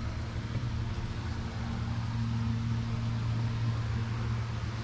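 Steady low mechanical hum with an even hiss, like a fan or air-handling unit running in a small metal space; a higher tone in the hum drops away about three seconds in.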